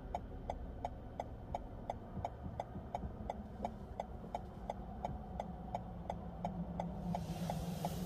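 Car's turn signal clicking steadily, about four clicks a second, over a low engine hum while the car idles at a red light; a soft hiss builds near the end.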